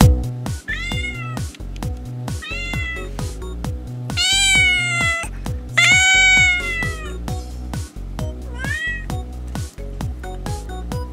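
A kitten meowing five times, high-pitched; the two middle meows are long and the loudest. Background music with a steady beat plays underneath.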